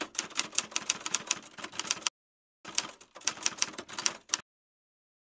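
Typewriter sound effect: keys clacking in quick succession in two runs, about two seconds, a short pause, then nearly two seconds more, stopping abruptly.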